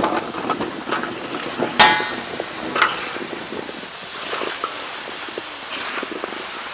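Metal spatula scraping and clinking against a wok while chunks of raw sweet potato are turned in sauce, with a sharp ringing clank about two seconds in and a lighter one a second later.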